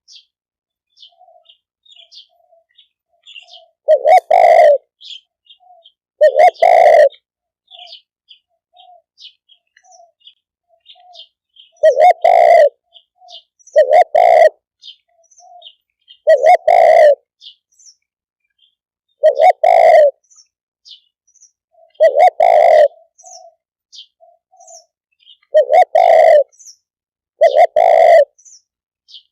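Spotted dove cooing: nine loud coos, each under a second, a few seconds apart. Faint high chirps of small birds are heard between them.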